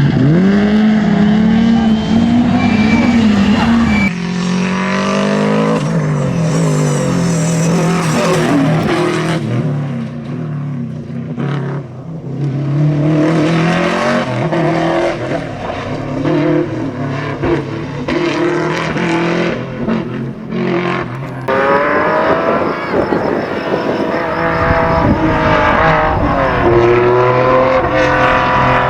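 Rally cars' engines at full throttle, revving up and dropping between gear changes as they drive a stage, with tyre and gravel noise; the sound changes abruptly about four seconds in and again around twenty seconds in as one car gives way to another.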